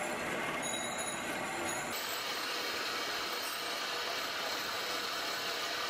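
Cotton candy machine running, its spinning head giving a steady whir under street traffic noise; the sound changes character abruptly about two seconds in.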